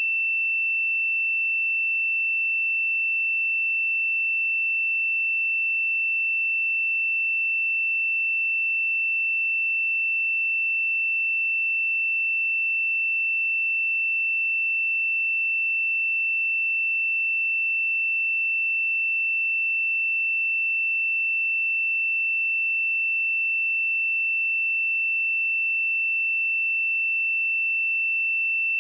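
A steady 2676 Hz sine-wave test tone, one pure high-pitched tone held at constant pitch and level.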